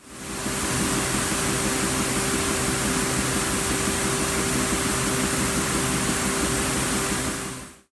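Air-cleaning machinery for plastic regrind running steadily: an even hiss with a constant hum, fading in at the start and out near the end.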